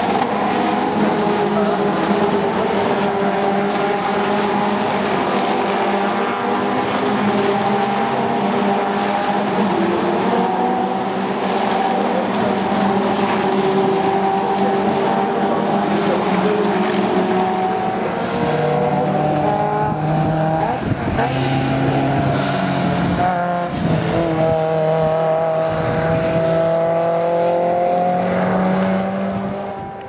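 Several Caterham Seven race cars' four-cylinder engines running hard at racing speed. The engines overlap, their pitch rising and falling as the cars accelerate, shift and pass by.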